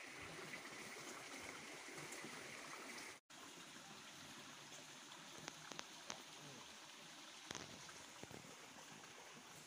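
Faint, steady trickle of water running in a shallow ditch, cutting out briefly about three seconds in, with a few faint clicks after the middle.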